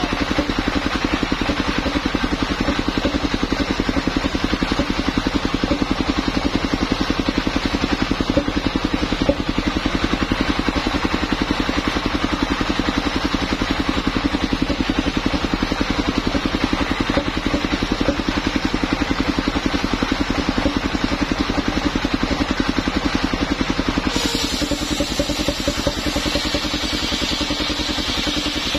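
Engine of a truck-mounted mobile circular sawmill running steadily with a fast even pulse, driving the big saw blade. Near the end a brighter, higher hiss joins it.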